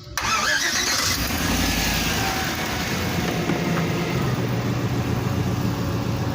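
2004 Chevrolet Express van's engine coming in suddenly, louder and brighter for about the first second, then running steadily.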